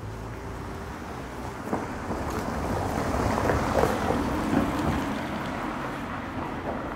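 A car passing close by and driving off along a paved street. Its tyre and engine noise swells, is loudest around the middle, then fades away.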